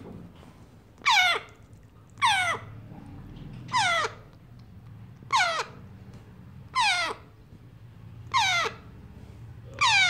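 35-day-old grey parrot chick giving repeated food-begging calls while being hand-fed strawberry: seven short calls about one and a half seconds apart, each falling in pitch.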